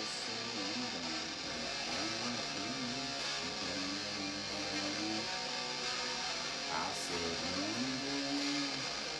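Rock song with strummed electric guitars carrying the music.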